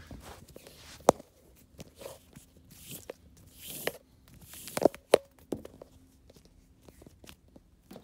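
Riccar Supralite vacuum's power cord being untangled by hand on carpet: irregular rustling and scraping of the cord, with a few sharp clicks and knocks, the loudest about a second in and about five seconds in.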